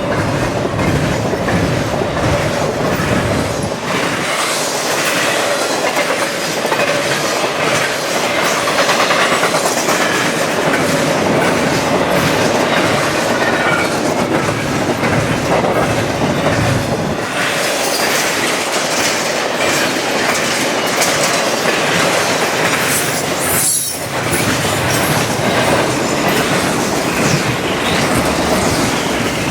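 Freight train cars rolling steadily past at track speed, wheels clicking over the rail joints, with a thin steady whine through the first half.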